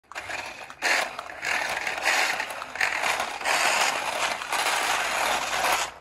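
Small rechargeable 1:24-scale remote-control Range Rover toy car driving on concrete: its electric motor and plastic gears run with a gritty whirr that surges and eases in several bursts of throttle, then cuts off suddenly at the end.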